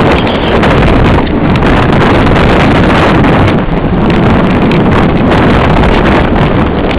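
Loud, steady wind buffeting the microphone of a camera carried downhill by a moving skier.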